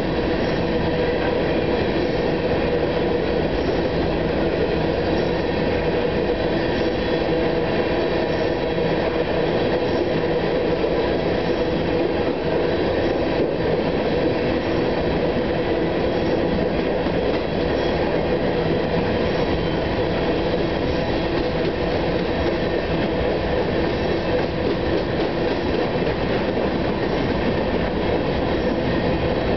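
Freight train of coal hopper cars rolling past: a steady rumble of steel wheels on rail with a steady whine running through it.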